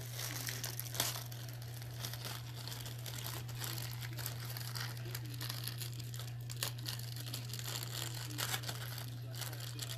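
Thin clear plastic bag crinkling and rustling in irregular crackles as hands handle it and work it open, over a steady low hum.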